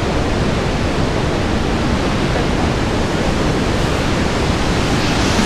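Iguazu Falls' heavy falling water making a steady, loud rushing noise, growing a little brighter near the end.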